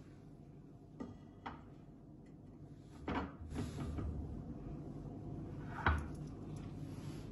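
Kitchen utensil knocks and clatter: a silicone spatula scraping and tapping against a pan and a glass baking dish, and the pan being set aside, with the loudest knock about six seconds in, over a low steady hum.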